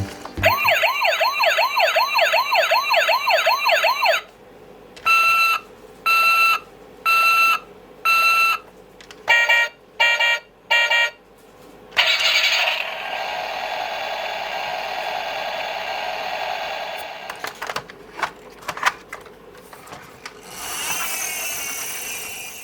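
Electronic sound effects from a toy police car's sound module. First comes a fast up-and-down wailing siren for about four seconds, then four evenly spaced beeps and a run of five quicker beeps. After that comes a longer hissy, noisy effect, a few clicks, and a last short noisy burst near the end.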